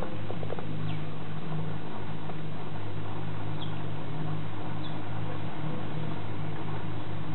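A steady low hum runs throughout, with a few brief, faint high chirps about three and a half and five seconds in.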